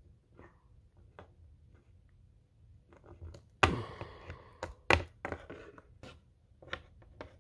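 Scattered taps, knocks and rubbing from hard plastic toy figurines being handled and moved on a table. The loudest knocks come about three and a half seconds in and again about five seconds in.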